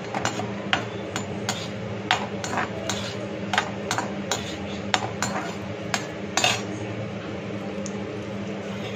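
Perforated metal slotted spoon scraping and clinking against an aluminium kadai while stirring cashews and almonds roasting in ghee. The sharp clicks come about twice a second for the first six or so seconds, then thin out, over a steady low hum.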